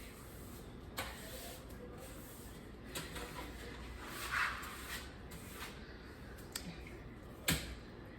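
Sweeping a kitchen floor with a broom: a few scattered knocks and a brief brushing swish about four seconds in, the sharpest knock near the end, over a steady low hum.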